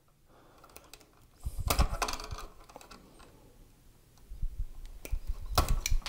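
Hand wire strippers working on the end of a house wire: two spells of clicking and scraping as the jaws close on the insulation and strip it, the first about a second and a half in, the second from about four seconds in with its sharpest clicks near the end.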